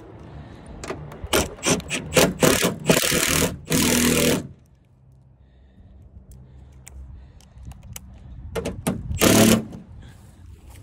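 A cordless drill fitted with a socket on a swivel runs down the wing's mounting nuts. There is a spell of irregular clicking and rattling, then a short burst of the drill about four seconds in and another near nine seconds.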